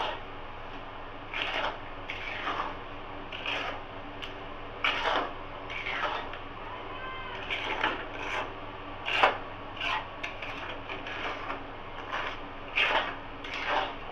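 Metal spatula scraping and stirring thick kheer (khoa) with sugar in an aluminium kadai, in repeated irregular scrapes roughly one or two a second. The mixture is stirred constantly so it doesn't catch on the bottom of the pan.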